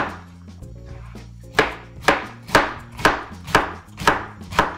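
Kitchen knife chopping through cabbage into half-inch slices on a cutting board. One chop at the start, a short pause, then steady chops about two a second.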